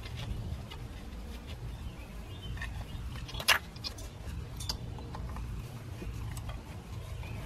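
Hand tools clicking lightly against metal while a socket on an extension is fitted to the bolts of a drive-belt tensioner, with one sharper metallic clink about three and a half seconds in. A low steady hum runs underneath.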